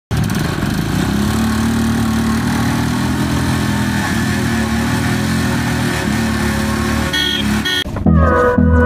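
Motorcycle engines running steadily under load as a Royal Enfield Bullet and the bikes roped to it pull against each other. About eight seconds in, the engines give way to music with a pulsing beat.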